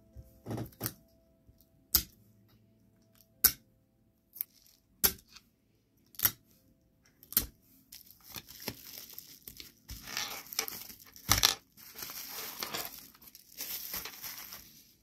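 Plastic packaging and bubble wrap on bagged pins and charms crinkling as it is handled, with a string of sharp taps and clicks of items set down on a table. From about eight seconds in, the crinkling becomes nearly continuous.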